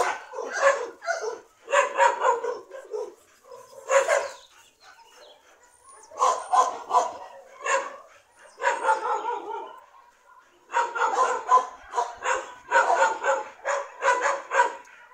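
Dogs barking during rough play, in quick runs of short barks with brief pauses between them.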